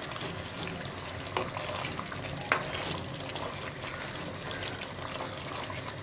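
Thick chicken curry bubbling and sizzling in a nonstick pot while a spatula stirs it, with a couple of sharp clicks of the spatula against the pot about one and a half and two and a half seconds in.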